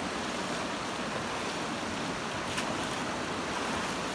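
Steady rush of a mountain spring stream, with water splashing as a person standing waist-deep in it scoops and throws water over himself; one short splash stands out about two-thirds of the way through.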